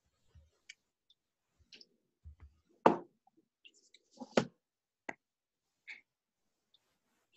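Scattered clicks and knocks heard over a video call, with dead silence between them: a loud knock about three seconds in, another about a second and a half later, then a sharp click.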